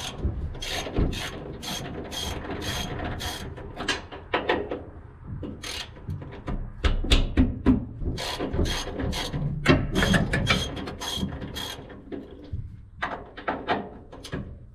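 Hand ratchet wrench clicking in runs of about three clicks a second, with short pauses, as bolts are worked loose to take the shoe auger bearings off a combine's shafts.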